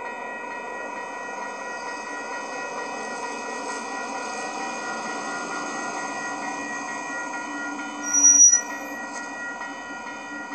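Railroad crossing warning bell ringing steadily while the gates lower, at a crossing that the uploader says kept malfunctioning. A brief, loud, high-pitched squeal cuts in about eight seconds in.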